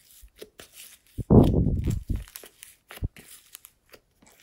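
Glossy slime being squeezed and pressed by hand into glitter, with sticky squelches and small popping clicks; one long, loud squelch about a second in.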